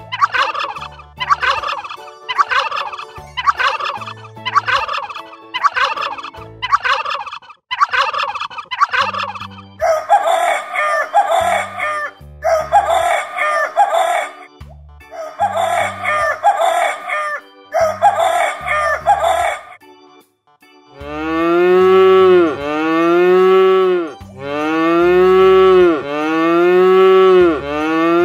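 A rooster calling over and over: a series of short calls about one and a half a second, then several longer crows. After a short break about twenty seconds in, a cow moos twice in long, loud moos.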